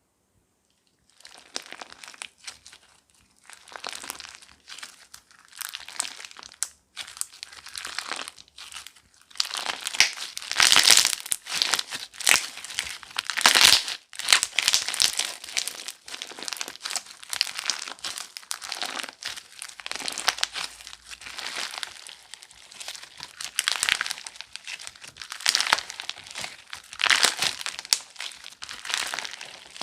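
Crunchy slime being squeezed, poked and pressed by hand, making irregular crackling and crinkling pops. It starts about a second in and is loudest midway.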